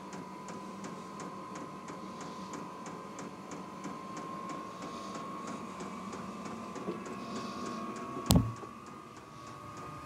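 Vevor 8 kW diesel heater running after being turned up: a steady whine from its combustion blower that creeps slowly upward in pitch, with the fuel pump ticking evenly a few times a second. A single sharp knock sounds about eight seconds in.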